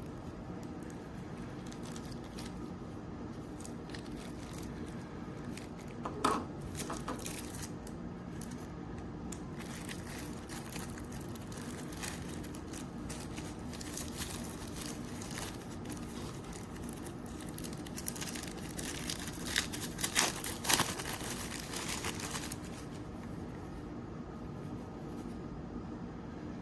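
Crinkling and rustling of things being handled, with sharp clicks about six seconds in and a busier stretch of crinkles and clicks around twenty seconds in, over a steady low room hum.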